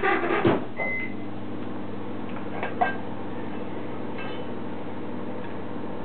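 A few clunks right at the start, a short high beep about a second in, and light knocks a couple of seconds later, all over a steady electrical hum: a microwave oven and the ceramic microwave-kiln parts being handled.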